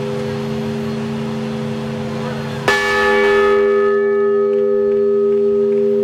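Large old school bell on a cast iron yoke, rung once about two and a half seconds in: a sharp strike, then several ringing tones whose high ones fade within about a second. A low hum from an earlier strike is still sounding before it and rings on after it.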